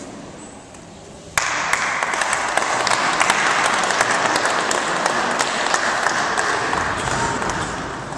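Audience applauding, starting suddenly about a second and a half in and easing off near the end.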